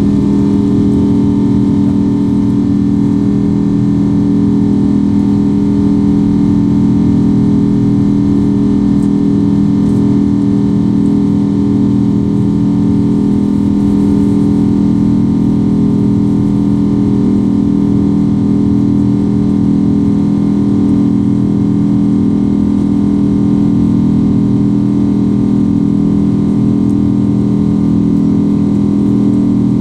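Cabin noise inside a Boeing 777-200 during its climb-out after takeoff: a loud, steady jet-engine and airflow drone with a low multi-tone hum.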